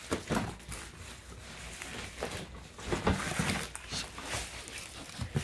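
Cardboard shipping box being handled and opened: irregular scrapes, knocks and rustles of cardboard and packing tape.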